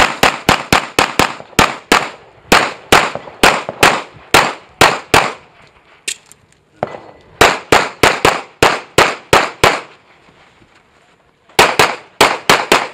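Rapid pistol fire in quick strings of shots, about four a second. The strings are broken by short pauses, with a longer gap about two-thirds of the way through before another fast string near the end.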